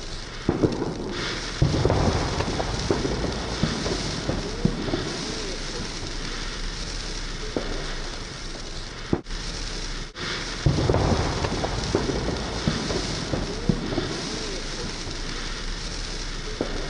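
Fireworks going off, with a deep boom about two seconds in and another about eleven seconds in, each followed by scattered crackling pops over a steady hiss.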